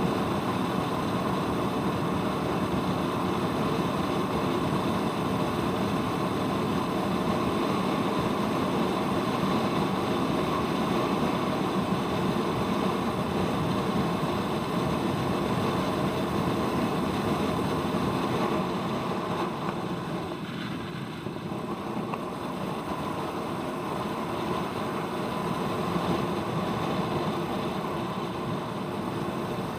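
Royal Enfield Meteor 350's single-cylinder engine running steadily on the move, easing off briefly about twenty seconds in and then picking up again.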